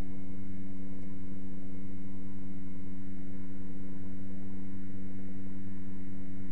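A steady low electrical hum made of several constant tones, unchanging, with no other sound over it.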